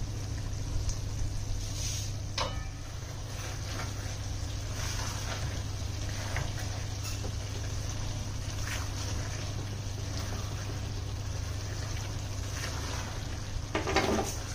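Chicken and kachnar curry cooking in a stainless steel pan on a gas hob, with a steady low hum underneath. A silicone spatula stirs the curry and scrapes the pan now and then, loudest near the end.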